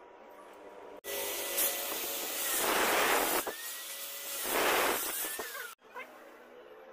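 Angle grinder with a thin cut-off disc running with a steady high whine and cutting into stainless steel tube, with two louder grinding stretches as the disc bites into the metal. It starts abruptly about a second in and stops abruptly near the end.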